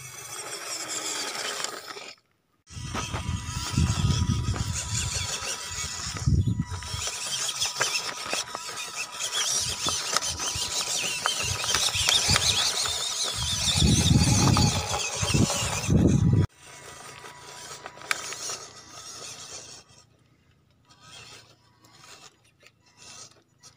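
Small RC crawler truck (MN 45 Toyota FJ40 with a 260 brushed motor) driving over gravel and rocks: electric motor and gears whining, tires crunching and scrabbling on stones. It is loudest through the middle, with two deep low surges, then drops suddenly to quieter scattered clicks near the end.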